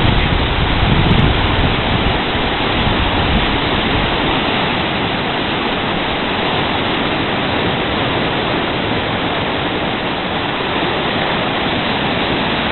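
Whitewater rapids rushing over rocks: a loud, steady, even rush of fast water.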